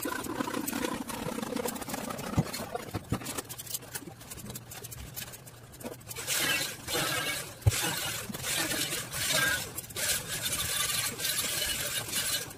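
Electric arc welding on a stainless steel frame: a crackling, hissing sizzle in stop-start runs, fainter in the first half and strongest from about halfway, with one sharp click in the middle.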